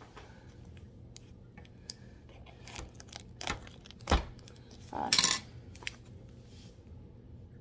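Metal scissors snipping and scraping at the packing tape on a cardboard shipping box, with scattered small clicks and rustles. A sharp knock about four seconds in is the loudest sound, followed about a second later by a brief louder rustling scrape as the box is handled.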